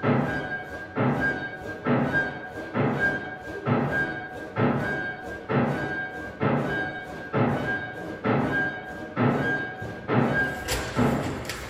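Contemporary chamber music for double bass, cello, violin and piano: a heavy beat repeats a little more than once a second, like a machine rhythm, with a thin high tone held through it. About ten seconds in, the high tone drops out and the sound thickens and brightens.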